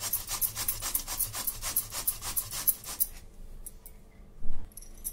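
Peeled boiled beetroot being grated on a round stainless-steel hand grater: quick rasping strokes, about four a second, that stop about three seconds in. A single thump follows near the end.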